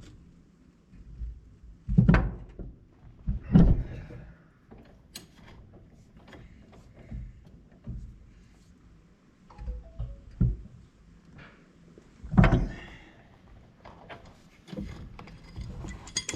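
Three heavy knocks, about two, three and a half and twelve seconds in, with lighter clicks and clanks between them, as tools and metal parts are handled during a wheel-bearing job on a planter wheel hub.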